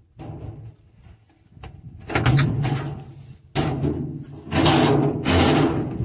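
Corrugated plastic drain hose of a washing machine scraping and rustling as it is twisted and pulled off the drain pump outlet, in three loud rough bursts in the second half.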